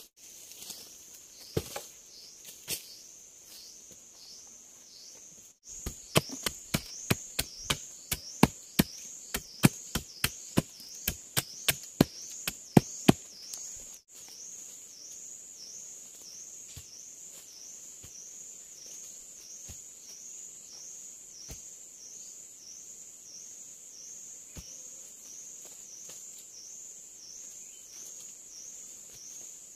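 A rapid series of sharp chopping blows on wood, about three a second, from about six to thirteen seconds in, with a few scattered knocks before and after. Insects call in a high, evenly repeating pulse throughout.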